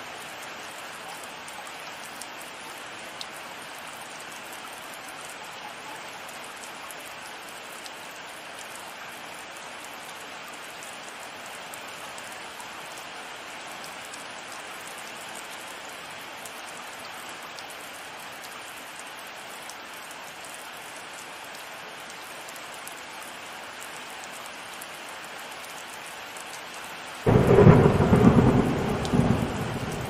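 Steady rain hissing throughout. Near the end a sudden loud thunderclap breaks in and rolls on as a low rumble that fades.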